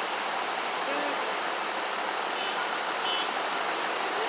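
Steady, even rushing noise with no distinct events, and a few faint brief tones now and then.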